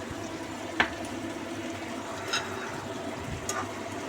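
Thickened sweet tomato sauce simmering and bubbling in a pan, with three short sharp clicks spread through.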